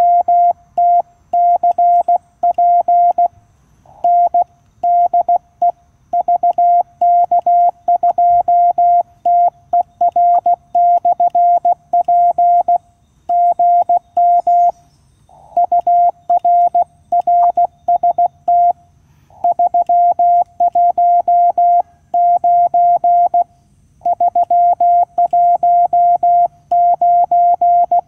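Morse code at 16 words per minute from a QRP Labs QCX-mini CW transceiver, its sidetone beeping through an external speaker at a single pitch around 700 Hz in dots and dashes with short pauses between words. It is the operator sending his own callsign 'de VK2TER/P' and then a weak-signal report, 'GM UR RST 319'.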